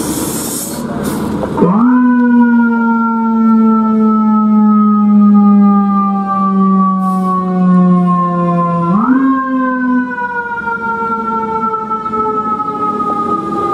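Fire engine siren responding to a call. After a second or so of engine and street noise it rises quickly into a long wail that slowly falls in pitch, then rises again about nine seconds in and starts a second slow fall.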